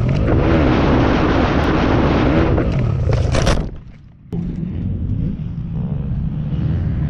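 Pit bike engine revving hard, mixed with a loud rush of wind and dirt noise. The sound dips briefly about four seconds in, then the engine runs on more steadily.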